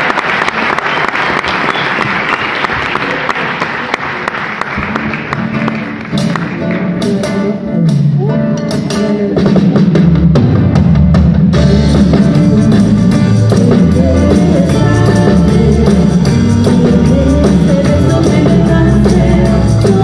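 Clapping dies away. After a few sharp taps, a live band starts a lively number: drum kit, a strong bass line, and plucked mandolins and guitars.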